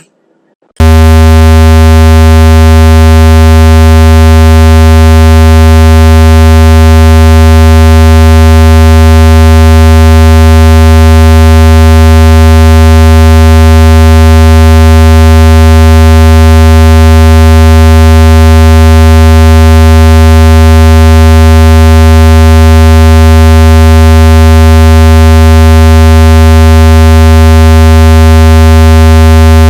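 Loud, steady, low buzzing tone from a synthesizer, starting just under a second in and holding unchanged: a water-eject tone played to vibrate water out of a phone speaker.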